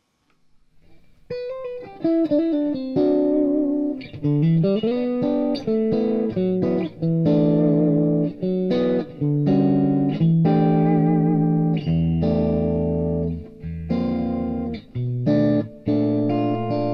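Electric guitar played through an amplifier and speaker cabinet, heard through a spaced A-B pair of room microphones set well back from the cabinet. A melodic single-note line with a rising slide starts about a second in and moves into held chords and low sustained notes.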